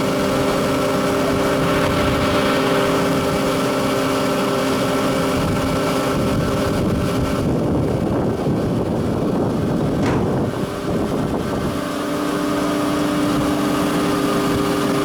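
Biomass sawdust burner running: a steady mechanical hum of several tones, likely its blower fan, over a rushing noise. For a few seconds midway the hum fades and the rushing noise swells, then the hum returns.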